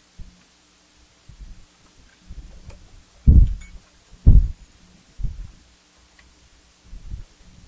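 Dull low thumps, roughly one a second with the two loudest in the middle, as the milling machine's table handwheels are nudged to bring the digital readout to zero, with a few faint clicks and a faint steady hum underneath.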